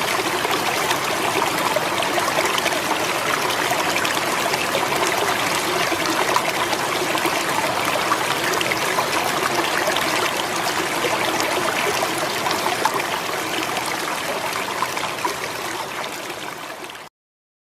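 Running water trickling and splashing steadily, easing off slightly and then cutting off abruptly near the end.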